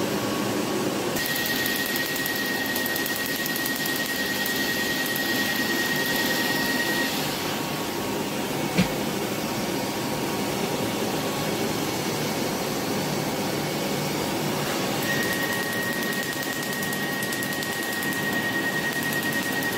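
Asclepion PicoStar picosecond tattoo-removal laser in use. Its cooling fan runs steadily, and twice a high steady tone with fast, evenly spaced ticking sounds while the handpiece fires its pulses: first from about a second in for six seconds, then again from about fifteen seconds on. There is a single sharp click about nine seconds in.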